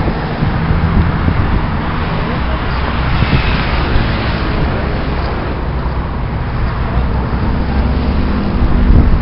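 Steady engine hum and road noise of a moving vehicle carrying passengers, with wind rushing on the microphone and some voices in the background.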